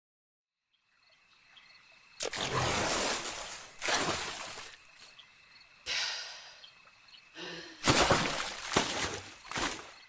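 Water splashing and surging in several loud bursts, as of a body rising up out of a lake, after a second of silence. Faint, evenly repeated chirping of night insects runs underneath.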